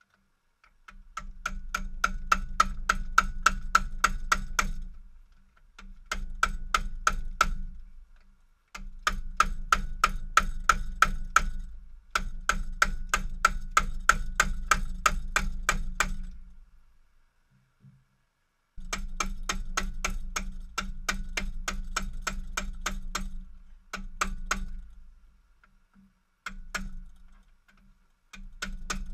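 Ball-peen hammer striking a broken metal fog-lamp bracket to bend it flat. The blows come quickly, several a second, in runs of a few seconds with short pauses, and each one rings with a metallic ping.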